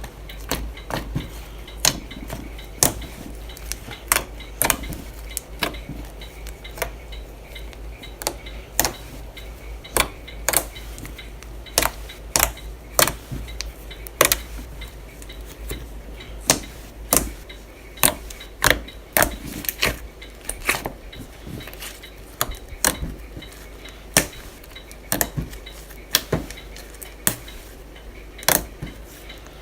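Slime being pressed and poked by hand, giving sharp, irregular clicks and pops, about two a second.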